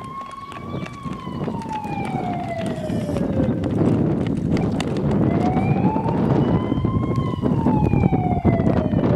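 A siren wailing slowly, its pitch falling, rising again about halfway through, then falling again near the end. Underneath is a steady rushing noise with scattered crackles.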